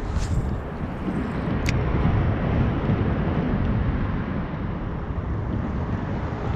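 Steady low rumble of wind buffeting the microphone on an open riverbank, with two short sharp clicks in the first two seconds.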